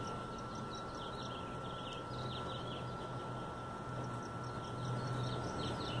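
Faint outdoor ambience: short runs of high-pitched chirps from small animals every second or so, over a thin steady tone and a low hum.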